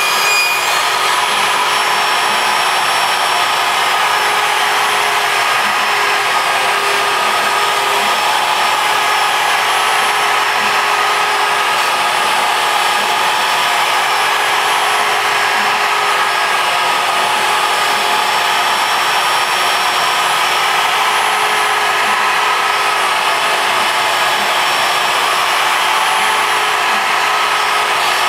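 Router on a ShapeOko CNC mill running steadily as its bit cuts through MDF, together with a shop vacuum drawing the sawdust through the dust shoe's hose. A steady whine over a dense rushing noise, without let-up.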